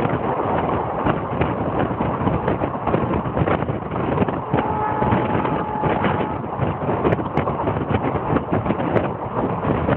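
Train in motion: a steady rumble and clatter of wheels on the track with many short knocks, and wind buffeting the microphone. A brief steady tone sounds about halfway through.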